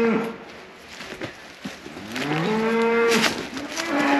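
A cow mooing: the end of one moo at the start, then a long moo about two seconds in that rises and then holds, and another beginning near the end.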